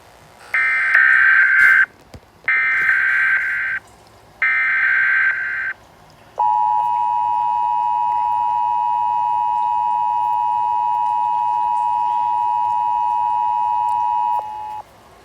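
Emergency Alert System audio: three short buzzy bursts of SAME header data tones, each about a second long, then the steady two-tone EAS attention signal held for about eight seconds before it cuts off.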